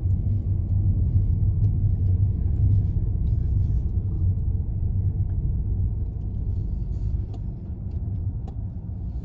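Low, steady rumble of a car driving slowly, heard from inside the cabin: engine and road noise.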